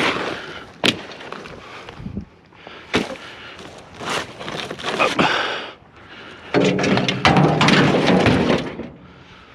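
Thumps, knocks and clatter of scrap and broken furniture pieces being handled and tossed into a truck bed, with sharp knocks about one and three seconds in and a longer rough scraping stretch in the last few seconds.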